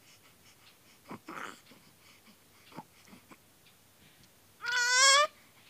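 A baby vocalizing: a few small fussing sounds, then a short, loud, high-pitched cry that rises slightly in pitch, near the end.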